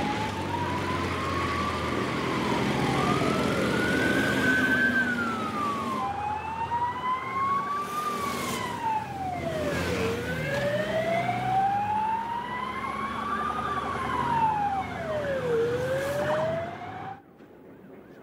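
Police escort sirens wailing, each rising and falling slowly over a few seconds, with a second, higher siren overlapping at times and road noise beneath. The sound cuts off suddenly near the end.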